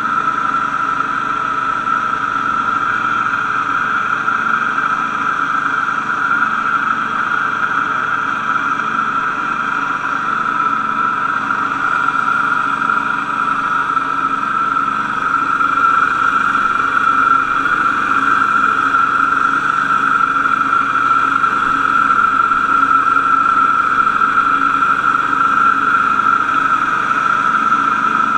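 Wright Stander stand-on mower running steadily while mowing, with the engine and cutting deck giving a constant high whine over the engine note. It grows a little louder in the second half.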